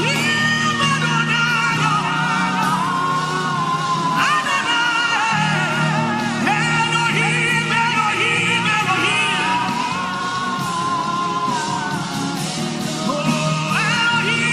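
Slow worship music: a steady held low chord under a voice singing long, wavering wordless notes that slide from pitch to pitch.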